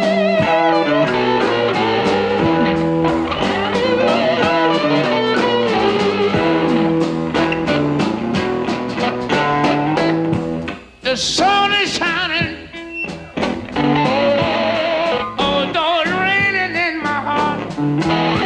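Live electric blues played by a guitar band: a slide guitar wails with wavering, gliding notes over a second electric guitar and drums. Just before the middle the band drops out for a moment, then the slide comes back in with a high run.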